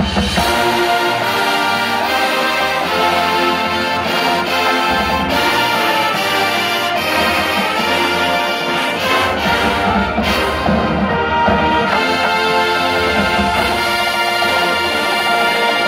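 College marching band playing: massed brass horns holding full chords over front-ensemble percussion, with a few sharp accented hits along the way.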